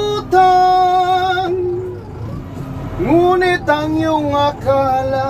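A voice singing in phrases of long, gliding held notes with short breaks between them, over the steady low hum of a forklift engine running.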